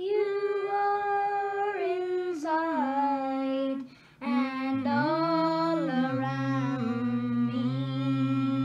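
Singing: a slow melody of long held notes that step down in pitch, with a short break about four seconds in. After the break a second, lower voice sings underneath the first.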